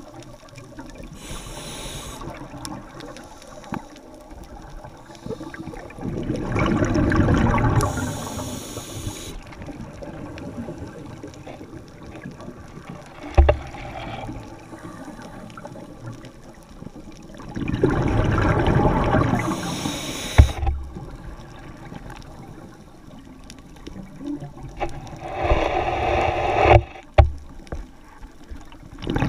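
Scuba diver breathing through a regulator underwater: three long rushes of exhaled bubbles about eleven seconds apart, each with a short hiss of inhalation near its end. A few sharp knocks come in between.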